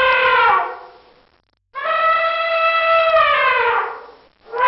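Elephant trumpeting: two long, loud calls, each bending down in pitch as it fades, with a short silence between them.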